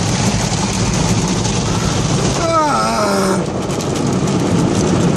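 Automatic car wash heard from inside the car: a steady rush of water spray and brushes working over the windows and body, over a low machinery hum. About two and a half seconds in, a man gives a brief wavering cry.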